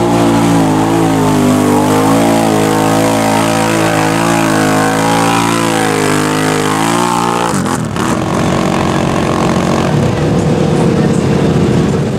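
ATV engine running under load and revving as it churns through mud, its pitch wavering up and down. About two-thirds of the way through, the sound changes abruptly to a rougher, noisier engine sound that settles into a steady drone near the end.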